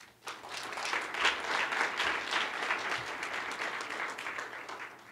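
Audience applauding, with many hands clapping at once; it starts just after the beginning, swells, and dies away near the end.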